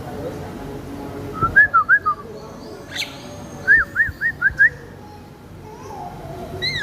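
Aviary birds calling: two quick runs of three or four short arched whistled notes, with single sharp chirps between, over a low steady background murmur.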